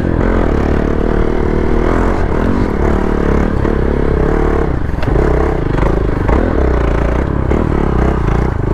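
Hero XPulse 200 motorcycle's single-cylinder engine revving up and down over and over while riding, with a steady low rumble underneath.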